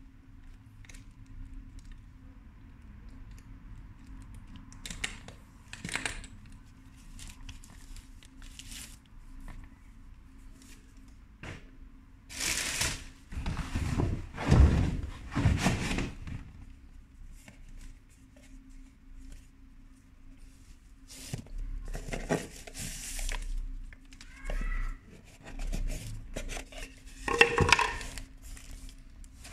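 Packaging being opened by hand: scattered handling noises and several loud bursts of rustling and tearing of the wrapping, over a faint steady hum.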